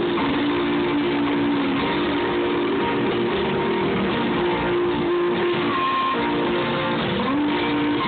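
Live band playing a song, with guitars strumming over piano and drums and long held notes; recorded from the hall with a phone, so the sound is dull with the highs cut off.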